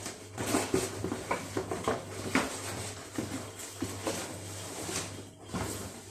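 A rain-wet parcel being handled and unpacked by hand: irregular rustles, scrapes and small knocks of the packaging, over a steady low hum.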